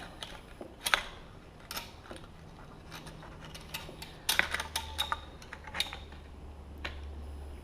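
Scattered metallic clicks and clinks of Remington 870 shotgun parts being handled as a magazine tube extension is fitted, with a cluster of clicks about four seconds in. A faint low hum comes in around the same time.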